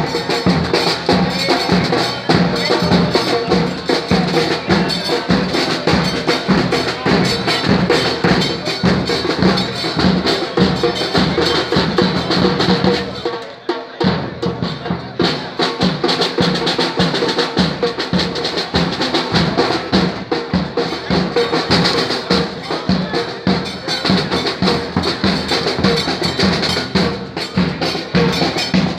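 Drums of a football fans' street band, bass drums and snare drums, pounding a fast, steady beat, with a brief break just before halfway through.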